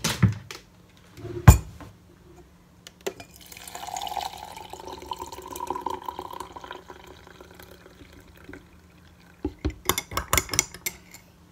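Two sharp knocks, then hot water poured from an electric kettle into a ceramic mug for a few seconds, the filling sound rising slightly in pitch. Near the end a metal spoon clinks quickly against the inside of the mug as the drink is stirred.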